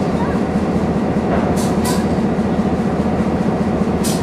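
Swing bridge drive machinery running steadily as the steel truss span pivots on its centre pier, a continuous loud rumble, with a few brief high clicks or squeaks about a second and a half in and near the end.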